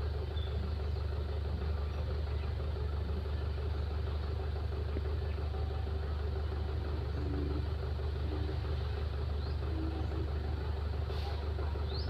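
Excavator's diesel engine running steadily, a constant low drone with a steady hum above it.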